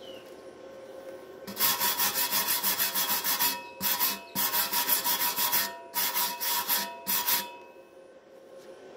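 Wire brush scrubbing slag off a fresh stick weld bead on thin galvanized steel tubing. It goes in quick back-and-forth scraping strokes, in several runs with short pauses between them.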